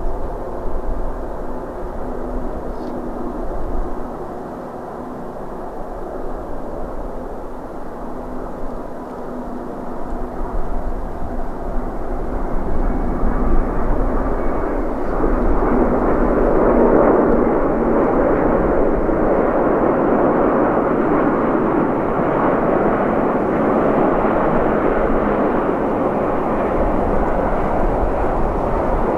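Airbus A350-900 jetliner's Rolls-Royce Trent XWB engines running, growing much louder about halfway through and then holding at a steady loud level.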